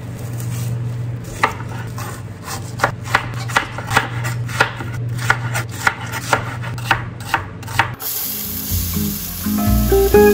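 Chef's knife chopping cabbage on a cutting board: sharp knocks about three a second over a steady low hum. About eight seconds in it cuts to onion and garlic sizzling in a pot, and music comes in near the end.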